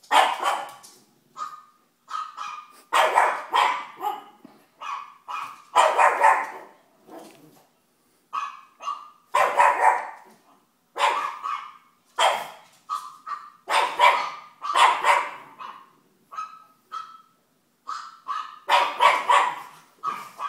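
Pug barking at a television, sharp barks and yaps in quick runs of two or three with short pauses between, over and over.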